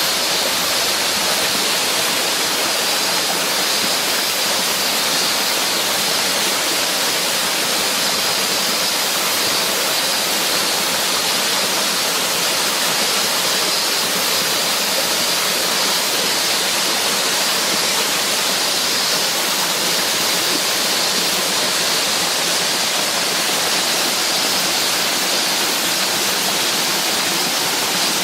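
Waterfall pouring steadily: an even, hissing rush of falling water with little low rumble.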